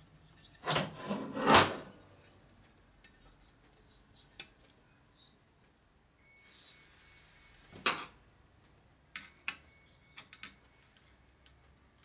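Metal clanks and clicks of hand tools and valve-spring parts on a Harley-Davidson panhead cylinder head while valve springs are compressed and keepers fitted. Two loud clanks about a second in, another near the end's start of the second half, then a quick run of light ticks.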